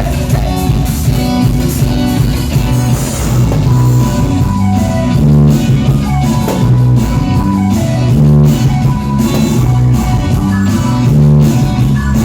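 Rock music with electric guitar, bass and a drum kit at a steady beat.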